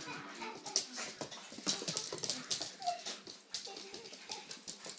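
Soft, dog-like whimpering, with a few brief squeaks (one clear one about three seconds in), among scattered light clicks and metallic rattles from a wire dog crate.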